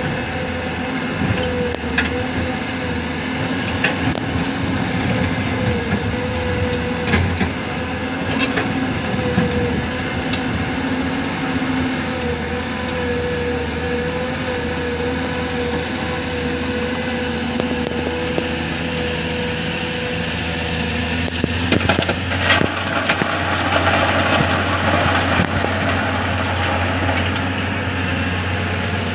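Diesel engine of heavy earthmoving machinery running steadily, with scattered sharp knocks and a burst of rough scraping noise about two-thirds of the way through.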